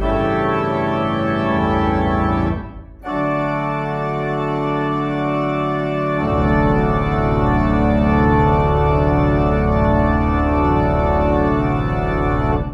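Church organ playing sustained chords, with a brief break about two and a half seconds in, then fuller chords with deep bass notes from about six seconds in. The final chord is released right at the end.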